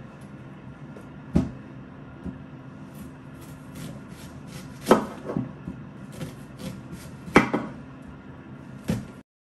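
Kitchen knife chopping a red onion on a cutting board: a handful of sharp knocks at uneven gaps of one to a few seconds. The sound cuts off abruptly near the end.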